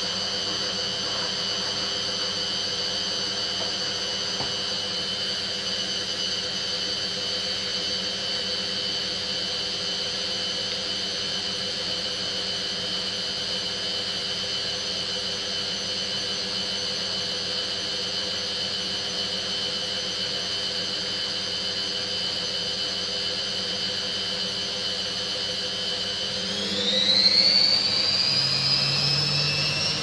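Hoover front-loading washing machine on a delicate cycle, its motor running the drum with a steady high-pitched whine over a low hum. Near the end the whine rises sharply in pitch and gets louder as the drum speeds up.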